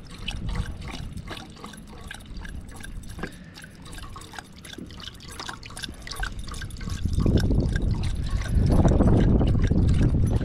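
A dog lapping water from a steel bowl while water is poured in from a plastic bottle: a quick run of small wet clicks and splashes. From about seven seconds in, a louder low rushing noise joins.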